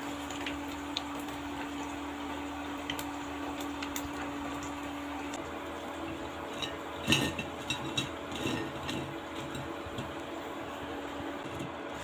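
Fried potato wedges and a wire skimmer clattering onto a ceramic plate: one loud clatter about seven seconds in, then a few lighter clinks, over a steady background hiss and hum.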